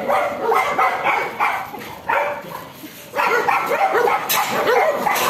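Dogs barking and yipping in rapid, repeated short barks. The barking eases off about two seconds in, then picks up again thickly about three seconds in.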